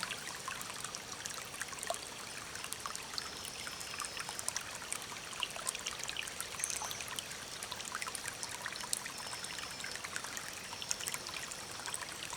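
Small stream trickling and splashing, a steady rush of water full of small splashes and drips. A thin, high whistled note from a bird is held briefly a few times.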